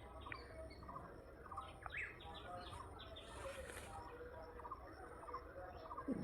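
Faint chirps of several small birds calling over and over, with a brief hiss about three and a half seconds in and a short falling sound near the end.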